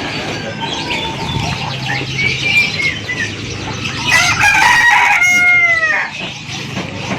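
A rooster crows once, starting about four seconds in, a long call that drops in pitch at the end, over steady market noise with small birds chirping.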